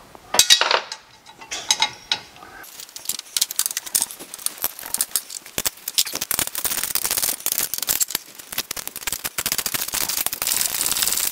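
Socket ratchet wrench clicking as bolts are run back in: a few separate clicks, then about two and a half seconds in a fast, unbroken run of clicks as the ratchet is swung or spun quickly.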